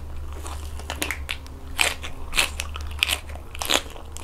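Crisp crunching and chewing of a raw cabbage leaf, close to the mouth, with about six sharp crunches spread over the few seconds.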